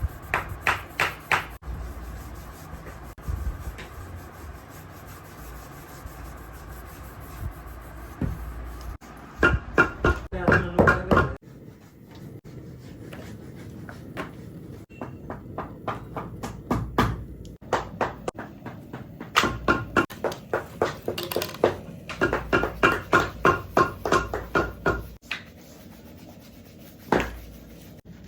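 Repeated hand strokes of a tool rubbing or scraping over a shoe, such as brushing, sanding or rasping, in runs of about three strokes a second with pauses between runs.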